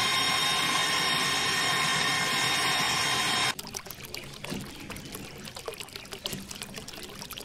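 Small DC motor whining steadily as a toy drill rod churns into muddy, waterlogged sand. About three and a half seconds in it cuts off, giving way to a quieter trickle and splash of water with small drips.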